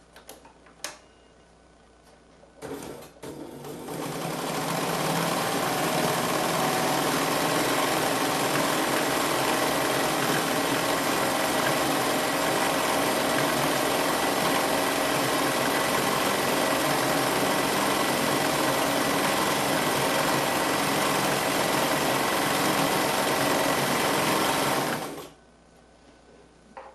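Bernina 940 sewing machine: a few clicks, then the machine starts and speeds up, runs steadily at high speed for about twenty seconds, and stops suddenly near the end.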